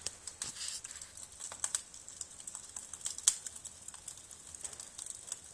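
Wood fire in a fireplace crackling: irregular sharp snaps and pops, the loudest a little over three seconds in.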